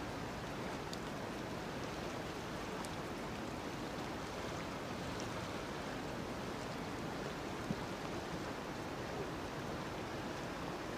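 Steady rush of the River Aire in flood, fast-moving floodwater running high.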